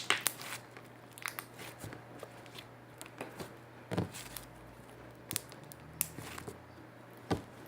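Slime being squeezed and stretched by hand, giving scattered sticky crackles and pops at irregular moments, loudest about four, six and seven seconds in.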